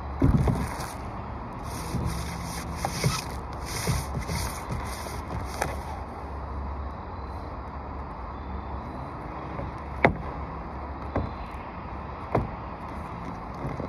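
Peel-and-stick butyl flashing tape being handled: crinkly, hissy rustles of the tape and its backing over the first six seconds or so, then a few sharp clicks, the loudest about two-thirds of the way through. Throughout there is a steady low rumble.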